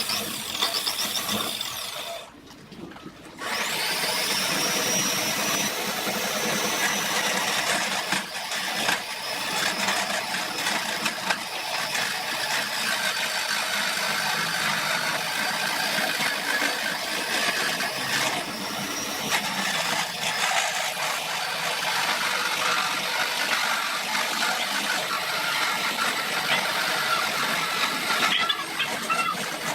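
High-speed electric power tool running, with a high whine and rough grinding or cutting noise. It runs briefly, stops for about a second, then spins up again about three and a half seconds in and keeps running under load.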